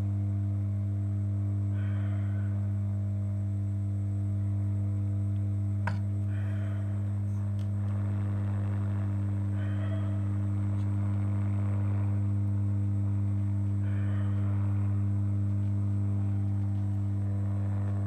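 Hot air rework station blowing hot air onto a freshly seated iPhone 6s display connector to reflow its solder: a steady low humming drone, with a fainter hiss that swells about every four seconds.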